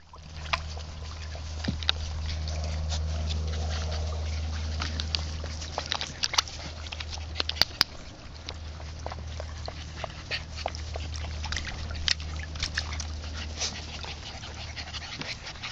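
Keeshond puppies splashing and lapping at the water in a plastic wading pool: many short, irregular splashes and slaps over a steady low hum.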